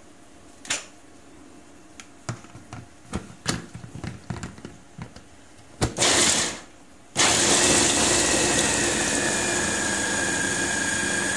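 Small clicks and knocks as an RAF electric chopper's motor head and lid are fitted onto its glass bowl. About six seconds in the motor gives a short burst, then from about seven seconds it runs steadily with a whine, chopping peeled garlic cloves.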